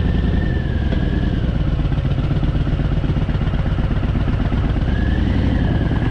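Harley-Davidson Fat Boy's V-twin engine running at low revs as the bike is ridden slowly on a steep mountain road, with a steady low rumble. A faint high whine rises and fades at the start and again about five seconds in.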